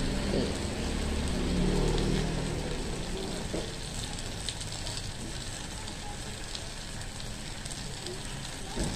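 Meat sizzling on an electric grill pan: a steady hiss with scattered small ticks.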